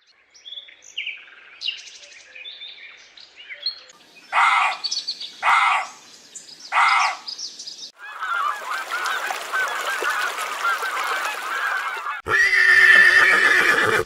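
Faint small bird chirps, then a goose honking loudly three times about a second apart, followed by a flock of geese calling over one another. Near the end a louder, different animal call cuts in.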